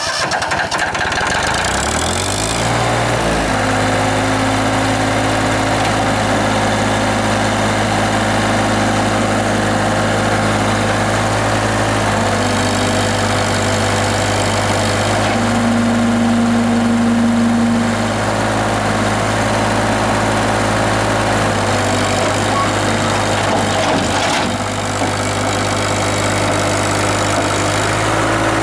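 Ford 1310 compact tractor's three-cylinder diesel engine starting and speeding up over the first few seconds, then running steadily while the front loader is raised and lowered. A higher whine comes in for about two seconds midway.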